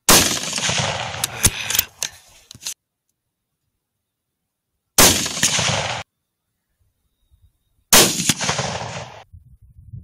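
Three rifle shots at night, each a sharp crack whose tail dies away over about a second. A few short sharp clicks follow the first shot.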